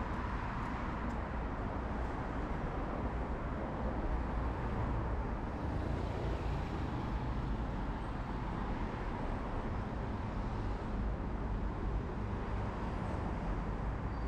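Steady road traffic on a multi-lane city boulevard: a continuous low rumble of cars and buses, swelling gently now and then as vehicles pass.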